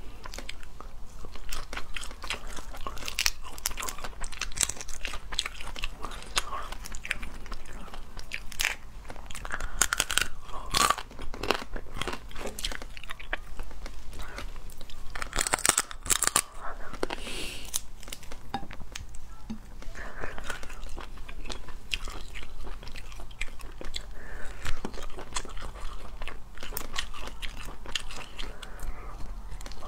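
Cooked crayfish shells cracking and crunching as they are pulled apart by hand, with biting and chewing close to the microphone. Sharp cracks come in irregular clusters throughout.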